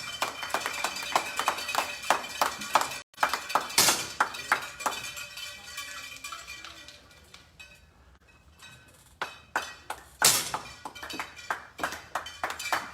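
10 m air pistols firing on the range line: two loud sharp pops, about four seconds in and about ten seconds in, among many lighter clicks and taps at irregular intervals.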